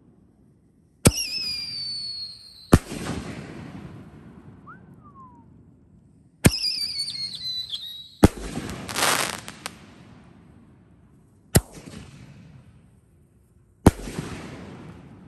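6-inch canister firework shells fired from mortar tubes. Twice, a sharp launch thump is followed by a high, falling whistle from the shell's whistling tail, then by the shell bursting overhead with a hissing crackle. Two more single bangs come near the end.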